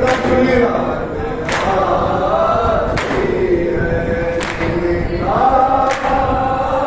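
A group of men chanting a noha together in a slow lament, with all of them striking their chests in time (matam). Each sharp slap comes about every one and a half seconds and marks the beat of the chant.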